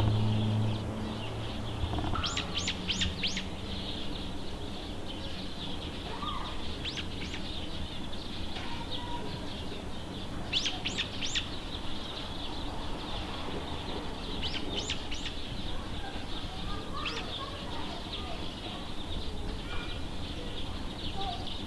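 A bird chirping in quick bursts of three to five sharp notes, repeated every few seconds over a steady high hiss. A low hum sounds in the first second.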